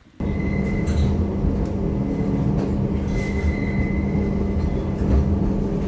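Train running, heard from on board: a steady loud rumble with a constant hum and a few light clicks. It starts abruptly just after the start.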